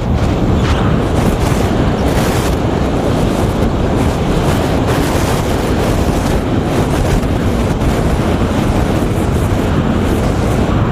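Wind rushing and buffeting hard on the microphone of a camera mounted on a small FPV flying wing in fast flight, a steady loud rush with brief surges, one about two seconds in.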